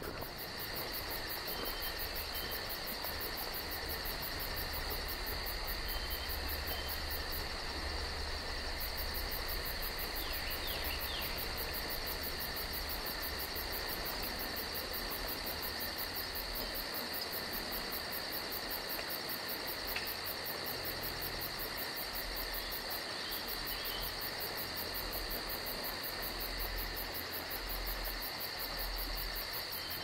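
Steady chorus of crickets and other insects: an unbroken high trill with a fast pulsing buzz above it, over a low rumble.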